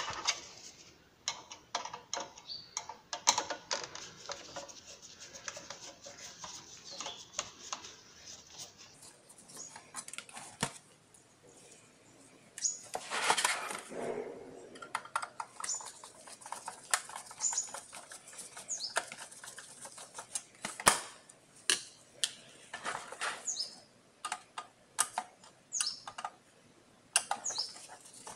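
Screwdriver unscrewing the cover screws from a DVR's sheet-metal case: irregular clicks, taps and scrapes of the driver tip and screws against the metal, with a busier scraping stretch about halfway through and a few short high chirps in the second half.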